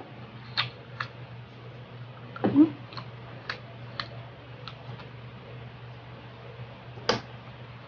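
Close-up eating sounds of grilled meat being chewed: wet mouth clicks and smacks at uneven intervals, about every half second, the loudest a little over two and a half seconds in, over a steady low hum.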